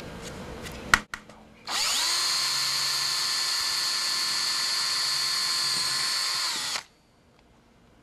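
Power drill with a 1/8-inch bit pre-drilling a pilot hole in a door jamb. A sharp click about a second in, then the drill spins up, runs at a steady whine for about five seconds and winds down.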